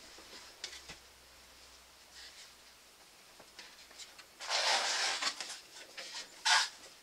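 Plastic car grille being handled and turned over: a few light clicks, then a scraping rustle of plastic against hands and backdrop about four and a half seconds in, and a shorter one near the end.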